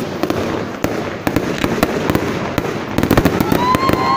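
Aerial fireworks display: a rapid string of bangs and crackles from shells bursting overhead. Several high whistling tones start near the end.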